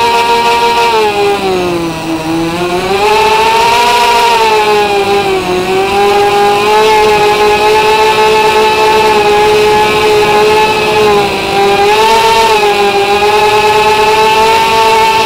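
Tricopter's brushless motors and propellers whining, heard close up from the onboard camera, the pitch falling and rising with the throttle: a dip about two seconds in, a rise around four seconds, and another dip and rise toward the end.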